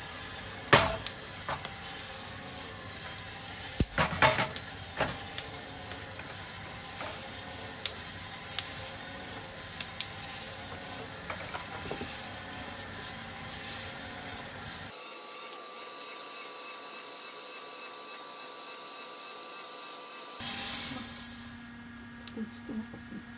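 Roasted coffee beans tumbling and clattering inside a turning stainless mesh roaster drum, over a steady hiss with sharp clicks now and then. About two-thirds through, the sound changes to a quieter steady hum with a faint tone, and near the end there is a short loud rush.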